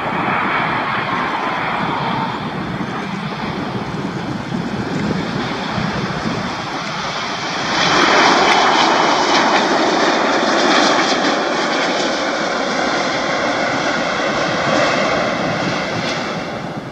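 Rolls-Royce Trent 970 jet engines of a British Airways Airbus A380-841 during landing and roll-out, with a steady high whine over dense engine noise. The noise swells suddenly about eight seconds in, then falls away near the end.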